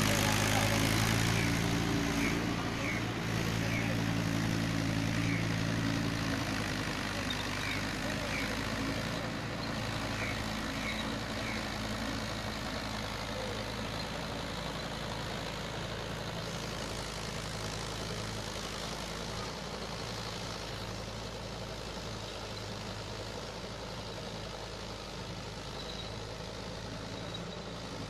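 Small tractor's diesel engine running steadily while it pulls a rotary tiller through the soil, its hum loudest at first and fading gradually as the tractor moves away.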